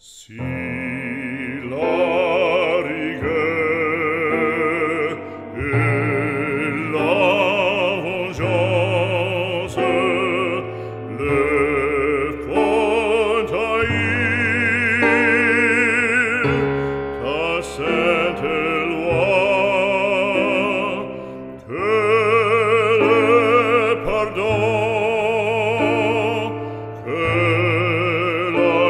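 Operatic singing with strong vibrato over an instrumental accompaniment with sustained bass notes, phrase after phrase, starting abruptly from silence.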